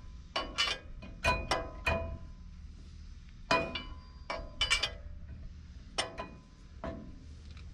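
Metal clinks of a cross lug wrench (T-wrench) turning a lug nut down on a wheel stud, pulling the new stud through the brake rotor. About a dozen sharp clinks come in small groups, each with a short metallic ring.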